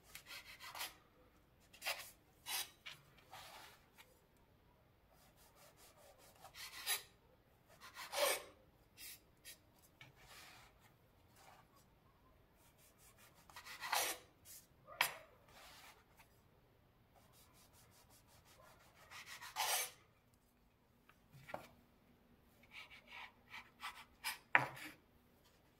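Kitchen knife sawing through bread crusts and scraping on a wooden cutting board, in short strokes separated by pauses.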